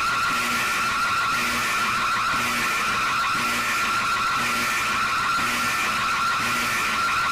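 Emergency alert alarm presented as Zambia's EAS tone, played back: a loud, harsh, unbroken screech held on one high pitch with a hissing noise above it, and a short low tone pulsing about once a second.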